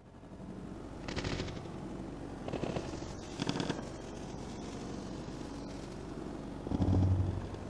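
A fast mechanical rattle over a steady low hum, swelling louder about a second in, again around three and a half seconds, and most strongly near the end.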